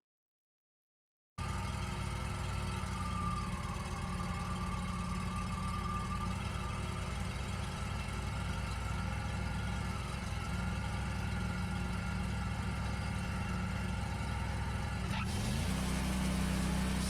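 Wood-Mizer LT40 Wide sawmill engine running steadily at low speed, starting abruptly after a second and a half of silence, then revving up about 15 seconds in and holding at the higher speed.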